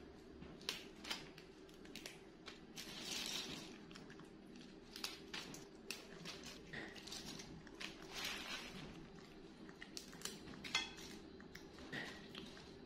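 Faint crackling and snapping of fresh vegetable stems and leaves being picked over by hand, with many scattered small clicks.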